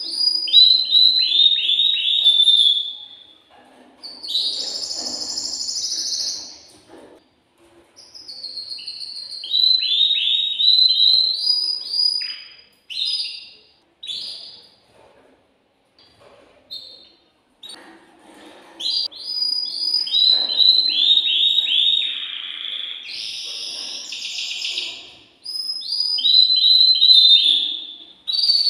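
Male canary singing in phrases: runs of quick, repeated down-sweeping notes and rapid trills, with buzzy rolls between them. The phrases are broken by short pauses, and a longer gap about halfway through holds only a few scattered notes.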